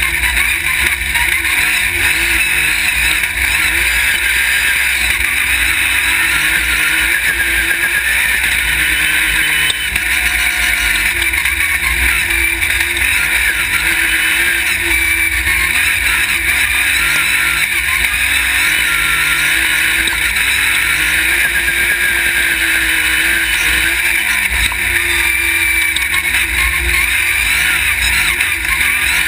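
Off-road race buggy engine running hard, its revs rising and falling again and again through shifts and corners, with a steady rush of wind and dirt-road noise.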